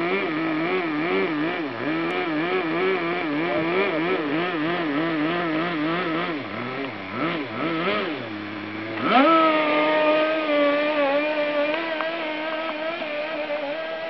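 Nitro glow engine of a Kyosho Blizzard RC snowcat idling, its pitch wavering up and down about twice a second. About nine seconds in it revs up sharply and holds a high steady note as the snowcat drives off over the snow, growing gradually fainter.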